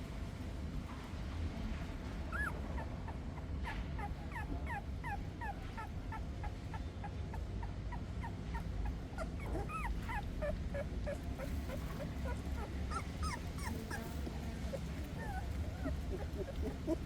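Puppies whimpering in many short, high squeaks, several a second and overlapping, over a steady low hum.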